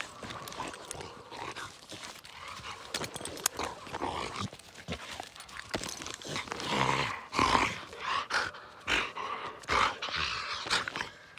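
American pit bull terrier making short, irregular vocal sounds and heavy breaths close to the microphone, loudest about seven seconds in, with scattered clicks and rustles of handling.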